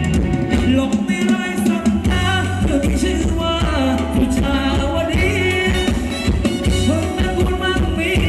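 Live band playing Thai ramwong dance music, a singer's voice over a steady bass and drum beat.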